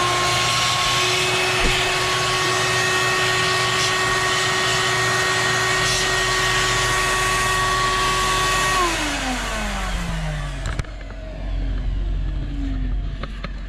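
Small wet/dry shop vac, run without filter or bag, running with a steady whine, then switched off about nine seconds in, its pitch falling as the motor spins down. A low rumble continues after it stops.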